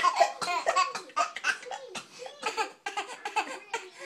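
A person laughing hard in a high voice, in quick repeated pulses that are loudest at first and then weaken.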